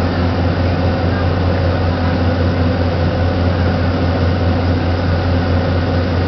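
Tour boat's engine running steadily under way: a loud, even low drone with a constant hum.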